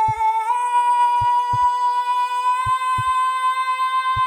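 A single held musical tone, steady in pitch with a slight step up about half a second in, over pairs of short low thumps, like a heartbeat, repeating about every second and a half.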